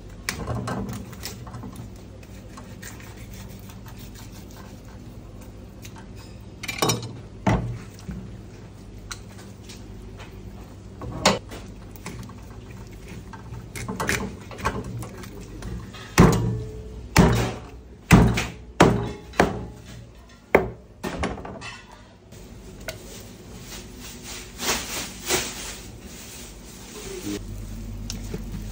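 Knife filleting a grouper on a plastic cutting board: scraping and cutting, with scattered knocks and a run of about six sharp strikes of the blade on the board about two-thirds of the way through, over a steady low kitchen hum.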